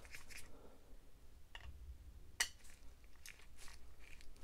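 Screwdriver working a very tight screw in a plastic display-case base: faint scraping with a few short clicks, one sharper click about two and a half seconds in.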